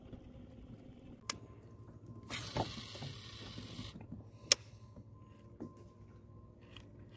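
Baitcasting fishing reel being worked: a hiss of about a second and a half, a loud sharp click, then light mechanical clicks over a faint steady whine.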